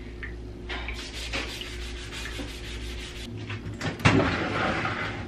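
Small scrub brush rubbing along the rim of a stainless steel sink in quick scratchy strokes. About four seconds in, a sharp loud knock as the countertop microwave is grabbed and shifted, followed by more handling noise.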